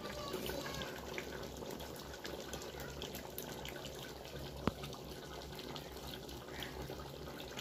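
Meat curry cooking in a large aluminium pot, freshly topped up with oil for frying: a faint, steady bubbling and sizzling, with a single sharp click about four and a half seconds in.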